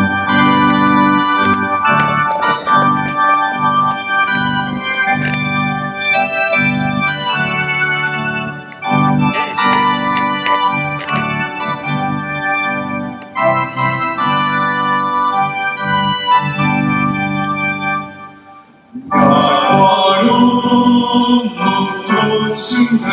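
Electronic organ playing sustained chords as the introduction to a sung psalm. The music dips briefly near the end, then comes back in at full level.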